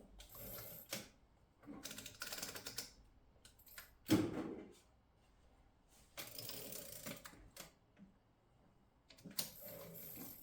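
Stoewer Model 5 typewriter's carriage-return lever being worked: the platen ratchets to a new line and the carriage slides back across, in several rounds of mechanical clatter, with one solid knock about four seconds in.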